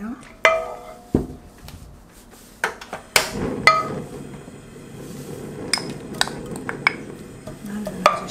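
Kitchen utensils clinking and knocking against a wok as oil is poured from a glass bottle and spread with a wooden spoon. A few ringing clinks come in the first four seconds, then lighter taps.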